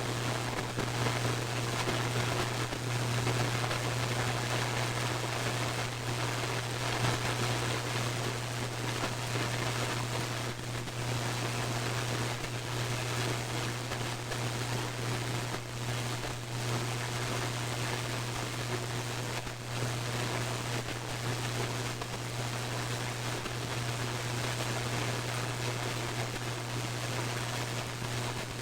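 Radio static: a steady hiss over a low hum, broken every few seconds by brief crackles, each one a lightning strike picked up by the radio.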